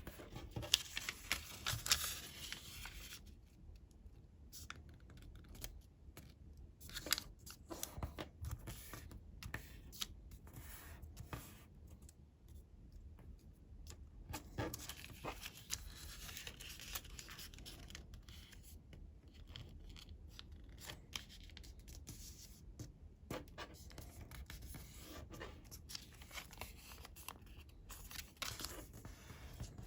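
Square of colored origami paper being folded by hand: irregular rustles, crinkles and short scraping strokes as the folds are made and creased, busiest near the start and again about halfway through.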